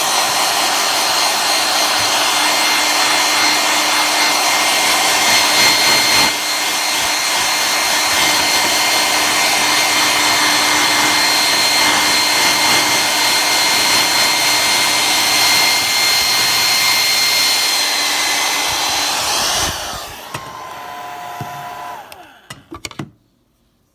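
Small hand-held hair dryer blowing steadily, a rushing air noise with a constant high motor whine, used to blow lint out of a serger. It is switched off about 20 seconds in and the sound dies away.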